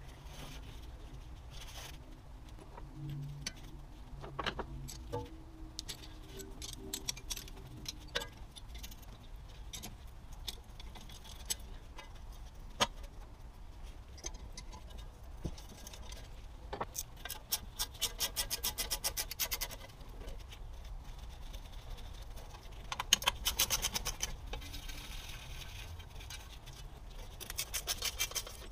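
Ratcheting wrench clicking as the brake dust shield bolts on a rusty strut housing are backed out, in runs of fast, even clicks, with small bolts and washers clinking and metal scraping as the parts are handled.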